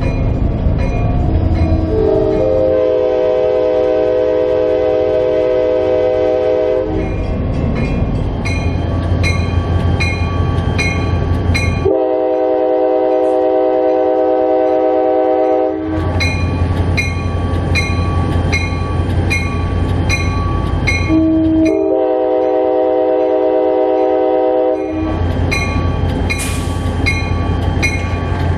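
Diesel locomotive's multi-tone air horn sounding the grade-crossing signal: a long chord about two seconds in, another in the middle and a shorter one near the end. Between blasts the locomotive's engine runs, with a regular ringing strike about once a second.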